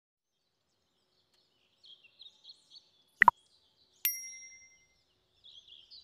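Faint small-bird chirps and twitters, broken by two sharp clicks in quick succession about three seconds in, then a bright bell-like ding that rings out and fades within a second.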